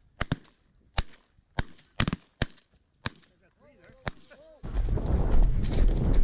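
A volley of about nine shotgun shots from several hunters firing at a flock of Canada geese, spread unevenly over about four seconds. About four and a half seconds in, loud rustling and footfalls take over as someone runs across the corn stubble.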